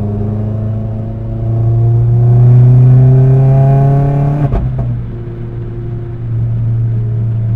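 Vauxhall Astra VXR's turbocharged four-cylinder engine accelerating, heard from inside the cabin, its note climbing steadily. A little over four seconds in it breaks off with a click at an upshift, the pitch drops, and the engine pulls again, rising.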